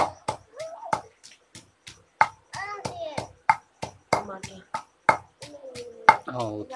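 Chutney being pounded with a pestle: a steady run of sharp knocks, about three a second.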